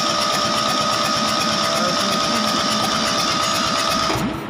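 Kubota D950 three-cylinder diesel being turned over by its electric starter, with a steady whine and a fast even chatter. It cranks without firing, the sign of no fuel being injected, and the starter is cut off about four seconds in.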